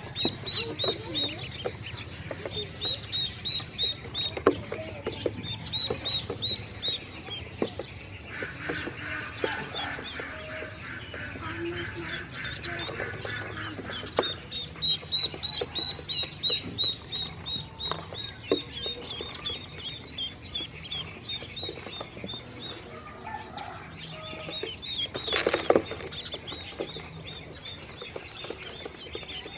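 Ducklings peeping, short high chirps coming in quick runs, with light clicks as they peck feed off a plastic tray. There is a brief louder rustle near the end.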